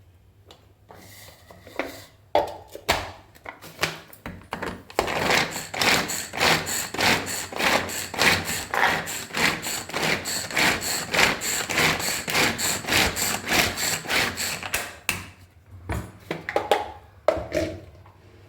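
Hand-operated vegetable chopper working through carrot: a few knocks as it is set up, then a long run of quick, even chopping strokes, about three a second, before it stops and is handled again.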